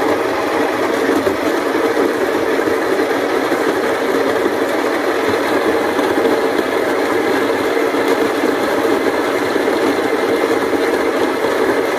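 Baratza Encore conical burr coffee grinder running steadily, grinding beans on a fine espresso setting.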